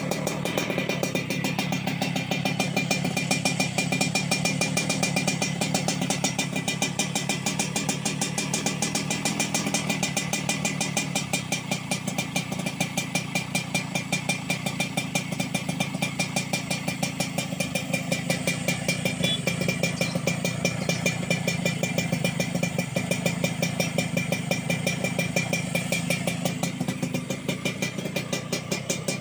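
Yamaha RX-King's two-stroke single-cylinder engine idling steadily through an aftermarket underbelly racing exhaust.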